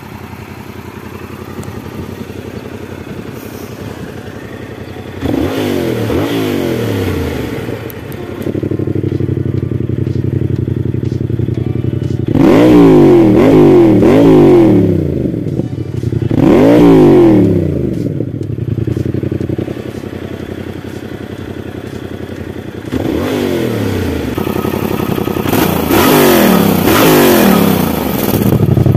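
Yamaha MT-07 parallel-twin engine idling and being revved in repeated throttle blips and one longer rev, pitch rising and falling each time, heard through its modified stock two-into-one exhaust.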